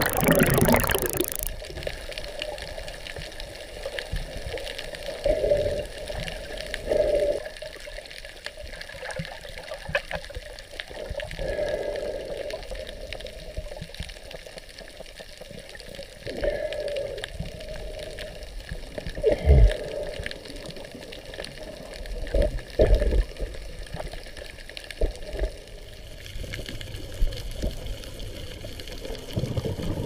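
Underwater ambience: a steady hiss with irregular bubbling, gurgling bursts every few seconds, the loudest a little after halfway.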